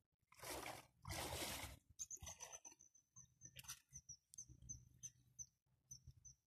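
Two short rushes of noise in the first two seconds, then faint high-pitched insect chirping, short chirps about three a second.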